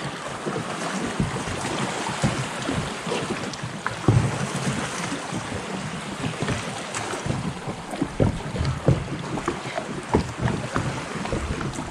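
Water splashing and lapping around a kayak as it is paddled on calm sea, with irregular small splashes and knocks, and wind on the microphone.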